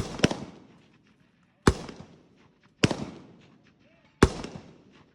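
Semi-automatic rifle firing five shots: two in quick succession at the start, then three more about a second to a second and a half apart, each sharp report trailing off in echo.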